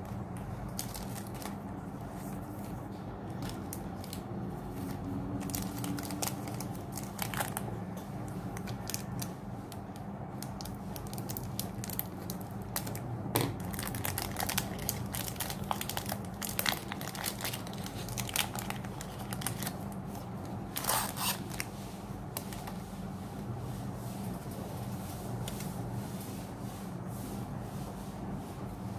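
Foil wrapper of a Pokémon card booster pack crinkling and tearing as it is opened, with the trading cards being handled and shuffled. The crackling comes in irregular bursts, busiest through the middle, over a steady low hum.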